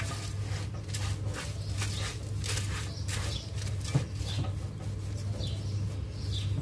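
Uncooked rice being mixed by a gloved hand in a metal pot: the dry grains rustle and scrape in repeated strokes over a steady low hum, with one sharp knock about four seconds in.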